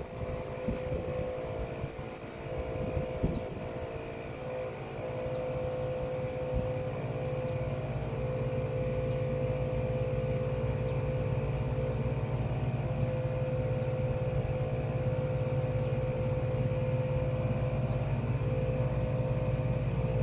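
Twin-cylinder ARB onboard air compressor running steadily as it pumps up an aired-down tire. Its hum grows louder and deeper about six seconds in.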